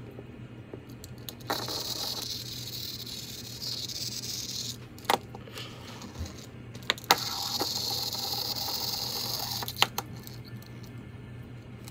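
Remote-control toy car's small electric motor whirring in two spells of about three seconds each, with a few sharp clicks between and after them.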